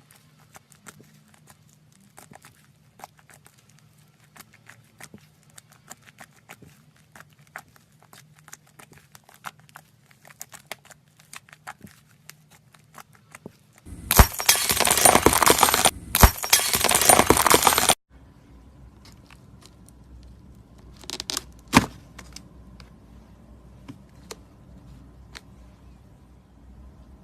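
Slime being squeezed and poked: a run of small wet clicks and pops, then, about halfway through, some four seconds of loud crinkling and crackling that stop abruptly, followed by a quieter stretch with a few more clicks.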